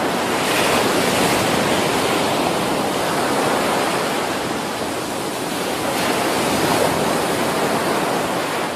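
Ocean waves breaking as surf: a steady, loud wash of rushing water.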